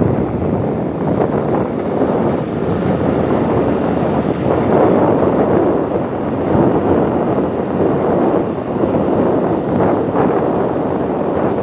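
Wind buffeting the microphone: a loud, steady rumbling rush with small swells.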